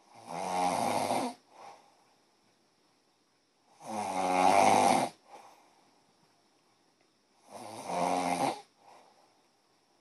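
A sleeper snoring: three loud snores, each about a second long, coming about every three and a half seconds, each followed by a short, much fainter sound.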